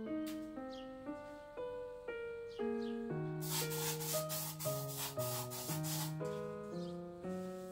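Aerosol spray can hissing for about three seconds in a run of quick pulses, starting about three seconds in, over background piano music.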